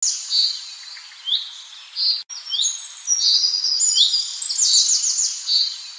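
Birdsong sound effect: several small birds chirping and trilling in quick, high notes that overlap. There is a brief break a little over two seconds in.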